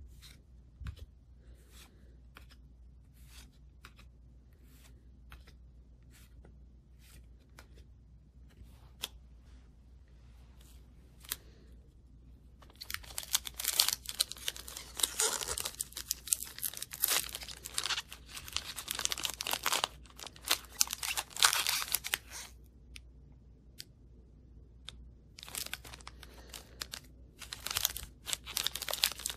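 Trading cards slid and flicked one by one in the hand, light clicks about twice a second. Then, a little under halfway in, the foil wrapper of an Upper Deck hockey card pack crinkles loudly and tears open for about ten seconds, pauses, and crinkles again near the end as it is peeled apart.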